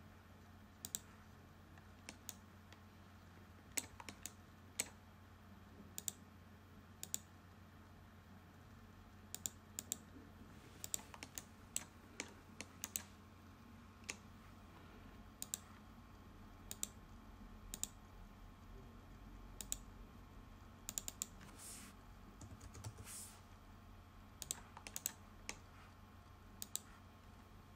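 Faint, irregular clicks of a computer mouse and keyboard, scattered singly and in quick runs, over a low steady hum.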